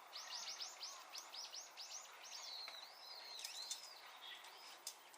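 Songbird calling faintly: a quick run of short, high chirps, about five a second, then a few slower swooping whistled notes.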